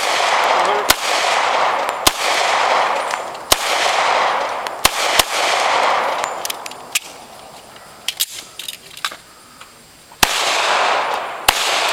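Gunshots fired one at a time at uneven intervals, about eight in all, each followed by a long echoing tail. A quieter stretch with only a few small clicks comes before the last two shots.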